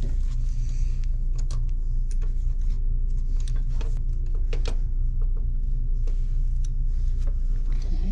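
A steady low hum, with scattered light metal clicks and taps as a hinge-pin press tool is handled and taken off a Brompton folding bike's frame hinge.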